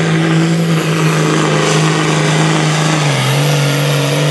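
Supersport pulling tractor's diesel engine running flat out under full load while dragging a weight-transfer sled, loud and steady, its pitch dipping slightly about three seconds in.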